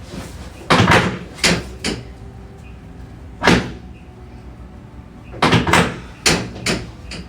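Chiropractic adjusting table knocking during an adjustment: about eight sharp knocks in irregular clusters, some in quick pairs.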